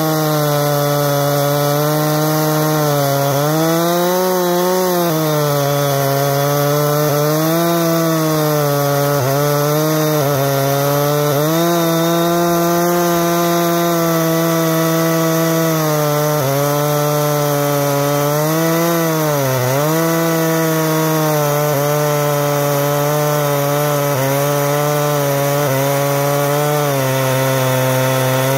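Husqvarna 460 Rancher two-stroke chainsaw running hard under load in an Alaskan chainsaw mill, ripping lengthwise through a cedar log. The engine pitch wavers as the cut is fed, with one brief sharp dip about two-thirds of the way through.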